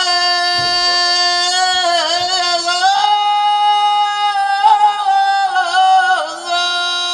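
A solo voice singing unaccompanied, holding long, ornamented notes that waver and bend between pitches.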